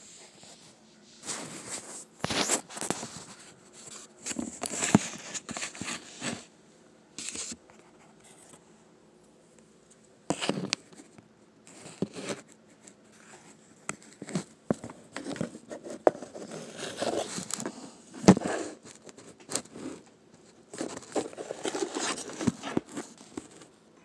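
Paper scratch-off lottery tickets being handled: crinkling, rustling and scraping in irregular bursts, with a few sharp knocks.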